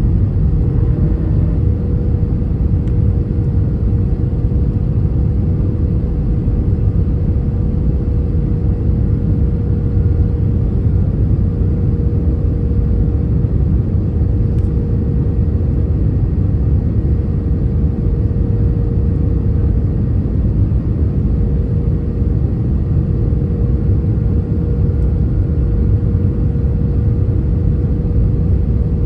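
Steady low rumble of airflow and engines inside the cabin of an Airbus A320-200 landing, with a constant hum tone running under it.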